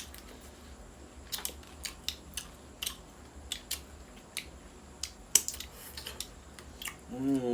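Close-up eating sounds: a string of sharp, irregular clicks and taps, roughly one or two a second. A voice starts near the end.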